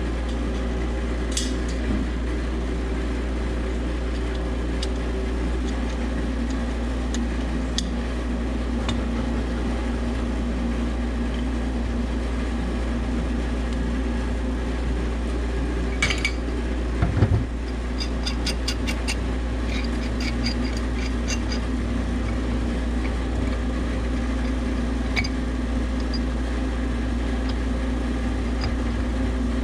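Steady machine hum with scattered metallic clinks of hand tools on pipework; a heavier knock comes about 17 seconds in, followed by a quick run of clicks for a few seconds.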